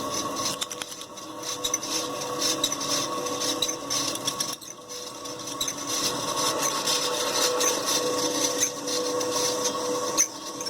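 Hampton Bay Huntington III ceiling fan motor running in reverse without blades, its bearings squeaking and rasping over a steady hum. The bearings are noisy and squeak more in this direction.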